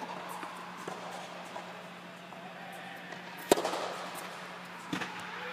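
Tennis serve: one sharp crack of the racquet striking the ball about three and a half seconds in, echoing in the indoor court. A softer knock follows about a second and a half later, over a steady low hum, with a couple of faint ball bounces before the serve.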